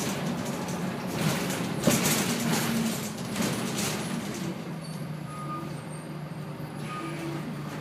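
Inside a TransBus Dart SLF single-deck bus: engine and road noise while it moves, with hissing in the first few seconds. About halfway through it gets quieter, leaving a steady low engine hum as the bus slows.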